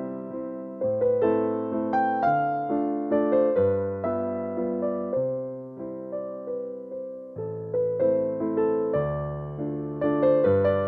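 Solo piano music: a slow, gentle piece of chords and melody notes, each note struck and fading away.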